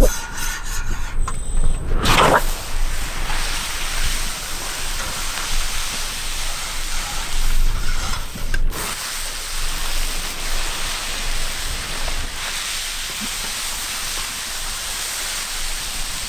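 Steady hissing sizzle of food frying in a large paella pan, with abrupt shifts in the sound about two seconds in and again near the middle.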